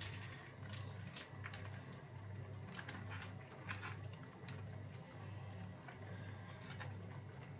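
Faint wet squishing and scattered light clicks of food being handled and melting in a pan, over a low steady hum.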